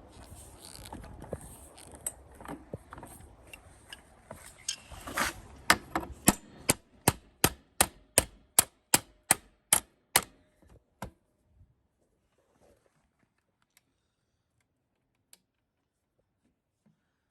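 Hand-tool work on a mower part: a few seconds of faint handling noise, then a run of about fifteen sharp clicks, roughly three a second, that stops suddenly.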